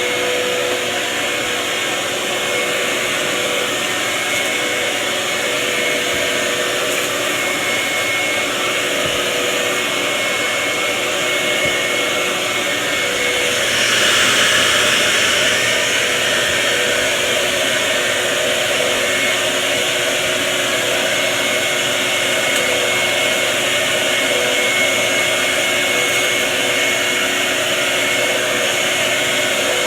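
A shop vac and an upright vacuum cleaner running together, a loud, steady motor drone with a high whine. It briefly gets louder and hissier about fourteen seconds in.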